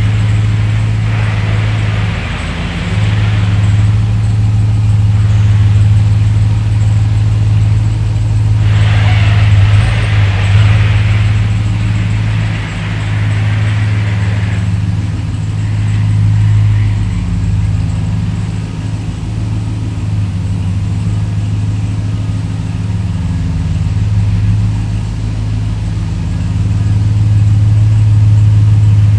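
A vehicle engine running at a steady, even low note, with stretches of rushing hiss over it.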